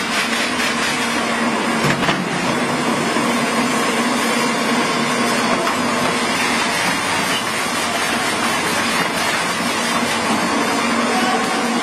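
Model 1500 wood pallet crusher running under load, its electric motor and rotor making a loud, steady mechanical din with a constant low hum as wood is shredded into chips.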